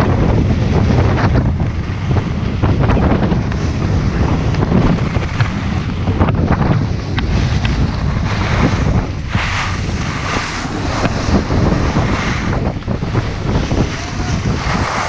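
Wind buffeting the microphone of a camera moving fast downhill, over the steady hiss and scrape of snowboard edges carving on packed snow.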